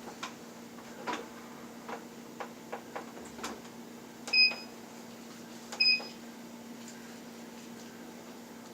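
Two short electronic beeps from an electric cooker's control panel as it is set to its brown rice setting, after a few light clicks in the first seconds. A steady low hum runs underneath.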